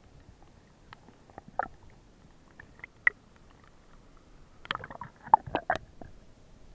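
Muffled water sounds from a camera in a waterproof housing as it moves through a shallow stream: scattered clicks and knocks, then a quick run of splashing and knocks near the end as it dips in and out at the surface.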